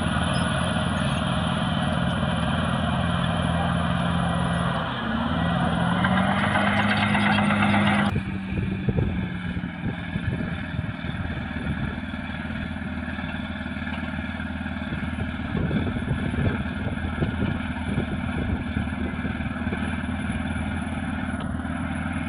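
Caterpillar D6R bulldozer's diesel engine running under load. Its pitch dips and then climbs about five seconds in, getting louder. At about eight seconds it changes abruptly to a lower, rougher engine sound with irregular clanks and knocks.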